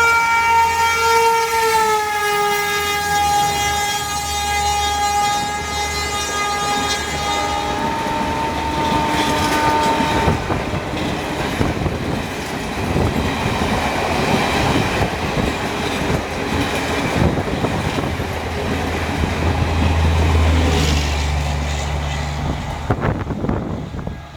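WAP4 electric locomotive's horn sounding one long blast that drops in pitch about two seconds in as it passes, and cuts off about ten seconds in. The train's ICF passenger coaches then rush past, their wheels clattering over the rail joints.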